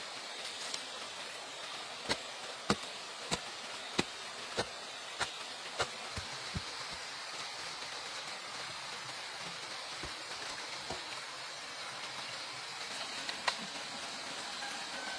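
A tool striking bamboo in a steady rhythm, about nine sharp knocks roughly 0.6 s apart, then one more knock near the end, over a steady hiss like rain.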